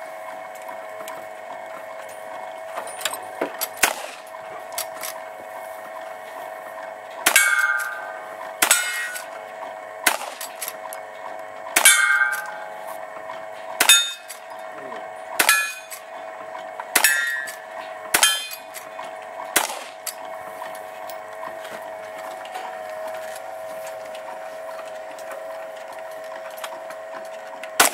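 A string of about nine gunshots fired from horseback at hanging steel plates, roughly one every one and a half seconds, each hit followed by a ringing clang of the steel. A few lighter clicks come before the shots, and the shooting stops for the last several seconds.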